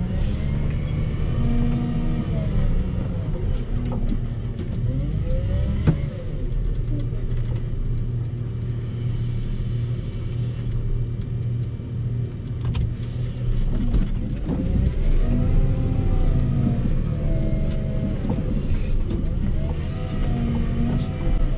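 Volvo L60H wheel loader's diesel engine, heard from inside the cab, revving up and down repeatedly as it pushes snow. A single sharp knock comes about six seconds in.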